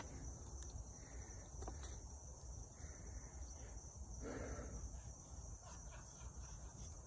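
Faint steady high chirring of crickets over a low rumble, with a brief soft scrape about four seconds in.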